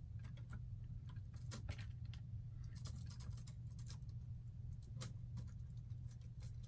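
Light, irregular plastic clicks and clacks from a brick-built roller coaster model being worked by hand, some in quick little clusters, over a faint steady low hum.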